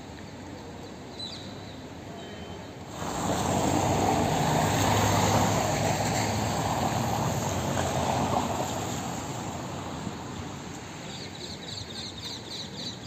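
A car driving past on a wet cobbled street, its tyres hissing over the stones with a low engine rumble underneath. The sound comes in suddenly about three seconds in and fades away over the next six or seven seconds.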